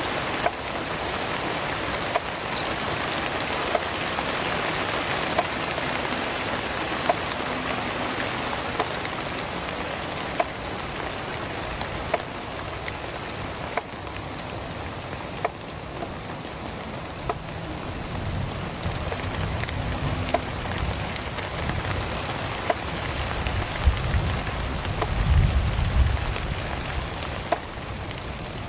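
Heavy rain falling steadily, with many sharp drip ticks scattered through it. Low rumbling thuds come in over the last third.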